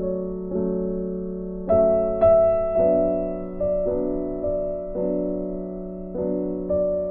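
Background keyboard music: slow, sustained piano chords that change about once a second, each one fading before the next.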